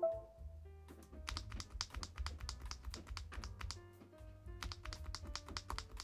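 Keys of an EPOMAKER TH40 40% mechanical keyboard with Wisteria switches pressed in a quick, steady run of short clacks, starting about a second in, over background music.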